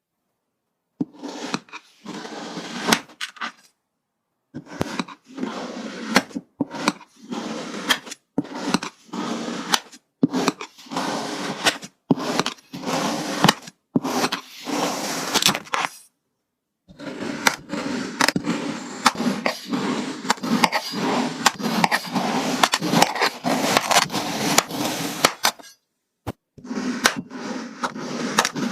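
Close-up handling of slime-making materials: scraping, clicks and knocks in a series of short clips, broken up by sudden cuts to dead silence.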